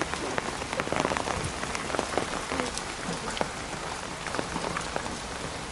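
Heavy rain falling steadily, with many separate drops tapping sharply on an umbrella overhead.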